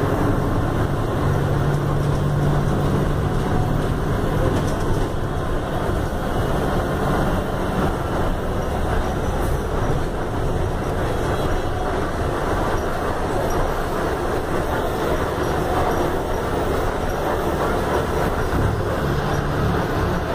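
Front-mounted four-cylinder diesel engine of a Mercedes-Benz OF-1519 BlueTec 5 city bus running under way in slow traffic, heard from inside the cabin. Its low engine note grows louder for a few seconds near the start and again near the end.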